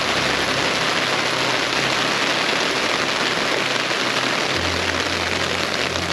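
Heavy rain pouring down steadily, pattering on the pop-up canopy overhead and the wet truck bed cover. A low steady hum joins about four and a half seconds in.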